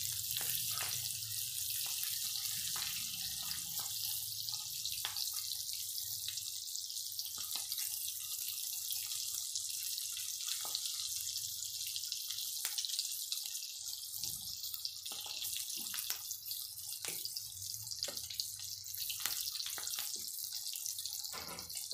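Masala-stuffed green chillies sizzling and crackling in hot oil on a tawa griddle, with occasional clicks of a fork turning them over.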